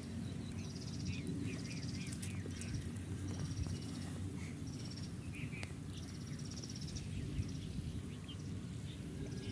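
Rural outdoor ambience: short, high buzzy trills repeating every second or so, with scattered chirps, over a steady low rumble.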